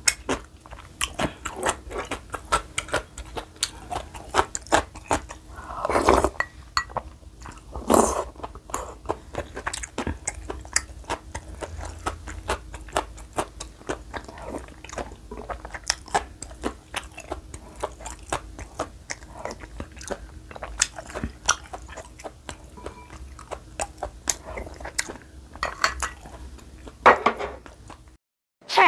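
Close-miked chewing and wet mouth sounds of someone eating spicy beef soup (yukgaejang) with its beef and bracken, a steady run of small clicks with a couple of longer, louder sounds about six and eight seconds in. The sound cuts off near the end.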